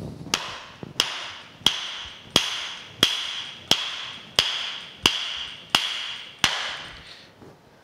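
Lead hammer striking the end of a steel countershaft about ten times, steadily at roughly one and a half blows a second, each blow ringing briefly, to drive the shaft out of its keyed hub. The shaft starts to come out under the blows.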